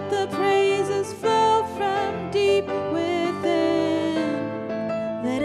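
Live worship music: an electronic keyboard holding sustained chords, with a singing voice carrying a wavering melody over them.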